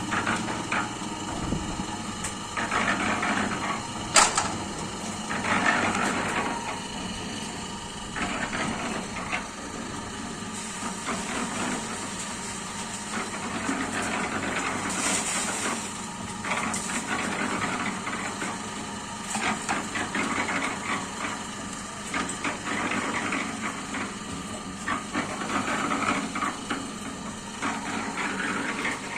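350-litre mini concrete mixer running, its turning drum churning a wet concrete mix with a steady motor hum and swishing surges every few seconds. A single sharp knock about four seconds in.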